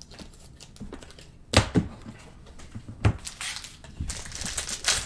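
Trading cards being handled and sorted on a table: a few sharp clicks and taps, two about a second and a half in and one around three seconds, then a light rustle near the end.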